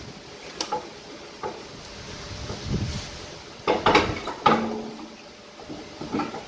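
Scattered knocks and clatter of things being handled, loudest in a quick cluster about four seconds in.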